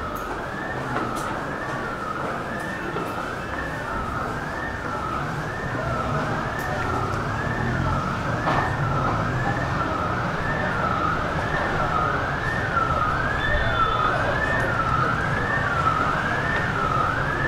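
Emergency vehicle siren, its pitch sweeping up and down a little faster than once a second without a break. It grows slightly louder partway through, over a steady low rumble.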